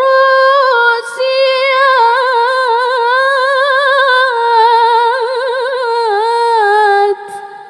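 A woman reciting the Quran in the melodic tilawah style. She draws out the phrase 'wa qudūrin rāsiyāt' in one long, high sung line with fast ornamental trills, with a brief break about a second in, and stops about seven seconds in.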